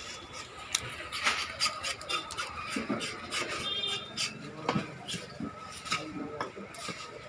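Large knife cutting through a pomfret and knocking and scraping on a wooden chopping block: irregular sharp knocks with rubbing scrapes between them.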